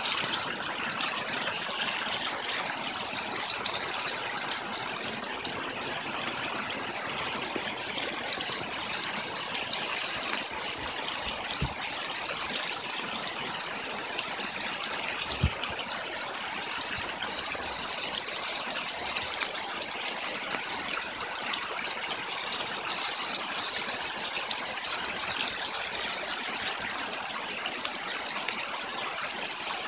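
Fast-flowing woodland stream rushing over rocks and small cascades, a steady gushing noise. A brief low bump is heard about halfway through.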